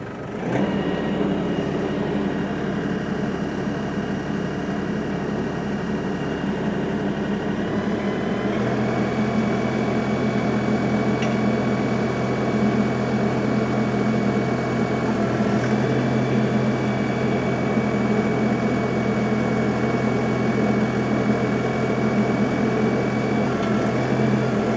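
Compact diesel tractor running with its PTO spinning a 3-point post hole digger's 6-inch auger as it bores into the ground. The engine note steps up and steadies about eight seconds in.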